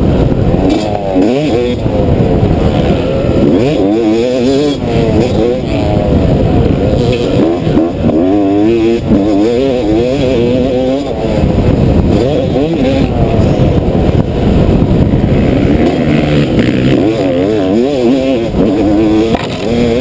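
Yamaha YZ250 250cc two-stroke dirt bike engine under hard riding. The pitch climbs again and again and drops back as the rider opens and closes the throttle.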